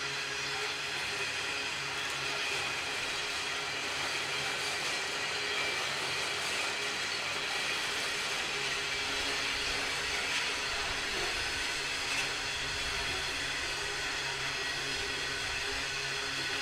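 Train running past at a steady speed: a continuous rumble and rolling noise with steady high tones running through it.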